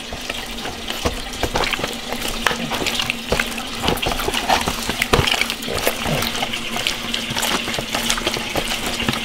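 Wet squelching and rubbing of hands kneading a raw pig's stomach in flour and salt in a stainless steel bowl, with many small irregular squishes and taps: the stomach being scrubbed to work off its slime.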